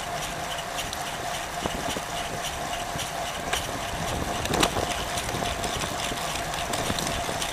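Road bike riding along an asphalt street: steady tyre and wind noise with a constant hum, light ticking, and a few knocks, the loudest about halfway through.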